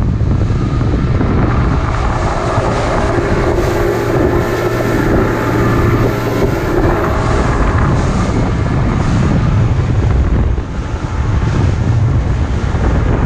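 Boat running at speed: the steady drone of its 150 hp Mercury outboard under heavy wind buffeting on the microphone and the rush of water off the hull.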